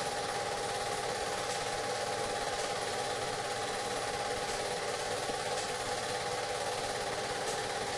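A steady mechanical hum, unchanging throughout, with a constant hiss over it.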